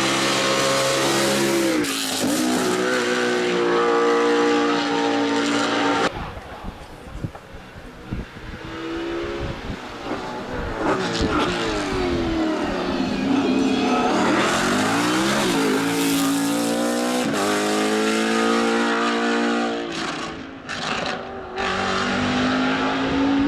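BMW Z4 GT3's 4.4-litre naturally aspirated V8 race engine at full throttle, revs climbing and stepping down at each upshift. About six seconds in it cuts to a quieter stretch where the revs fall away and then climb again, before loud full-throttle pulls with further upshifts return.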